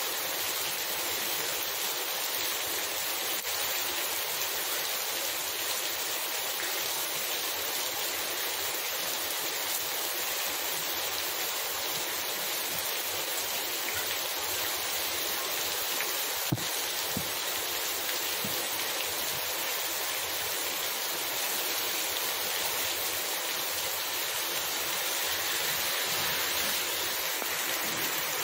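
Heavy rain falling steadily onto a wet, running asphalt street and tiled roofs, drops splashing on the water-covered road. One sharp tap about halfway through.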